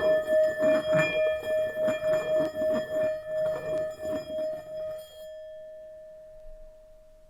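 Tibetan singing bowl ringing with a steady wavering hum, pulsing about three times a second. About five seconds in the pulsing and high overtones stop, and the single main tone fades away.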